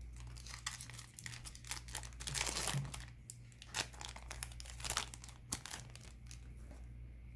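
Shiny wrapper of a hockey card pack being torn open and crinkled by hand: a quick run of crackles, loudest about two to three seconds in, then thinning out.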